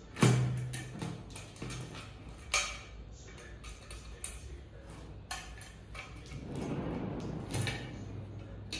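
Clicks, clinks and knocks of metal office-chair parts being handled while the seat mechanism is fitted to the seat, with a louder knock just after the start and a stretch of rustling about two-thirds of the way through.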